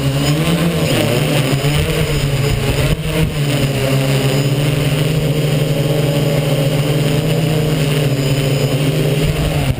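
Multirotor drone's electric motors and propellers humming steadily at a hover, heard close up. The pitch dips briefly near the start and again about three seconds in as the throttle changes.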